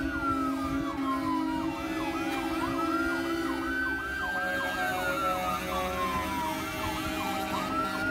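Two electronic sirens sounding together: one in a slow wail, rising, holding and falling about every four seconds, the other in a fast repeating yelp. A steady low drone runs underneath and stops about halfway through.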